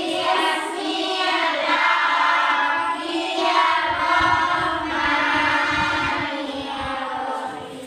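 A class of children reciting a prayer together in unison, in a sing-song chant with long held notes.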